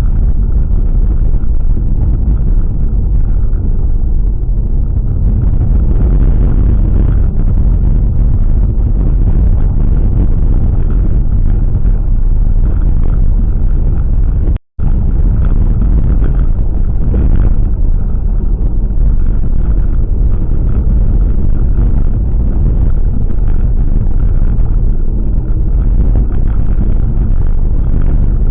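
Steady road and running noise of a car on the move, with a brief dropout about halfway through.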